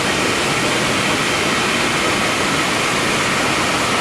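Steady, loud rush of water pouring over a river dam.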